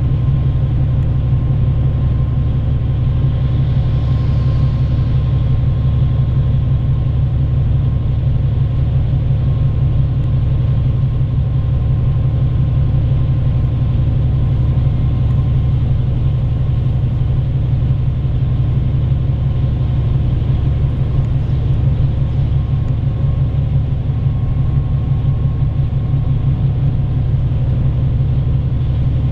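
Steady low rumble of a bus's engine and road noise, heard inside the cabin while the bus is driving along, with a faint steady whine above it.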